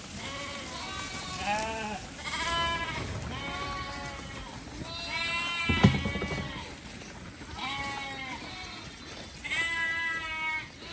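Sheep and goats bleating over and over, several animals calling across one another. A single sharp knock comes about six seconds in.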